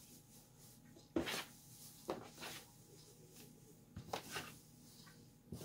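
Hands working damp shredded tobacco in a plastic tub: a few faint, short rustles a second or two apart.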